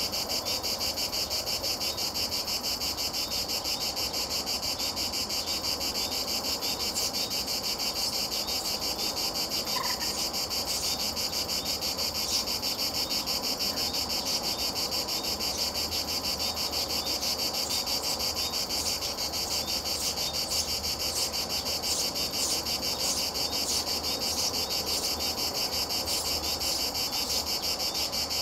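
Insects chirring steadily in a high-pitched, evenly pulsing drone, with a single short faint note about ten seconds in.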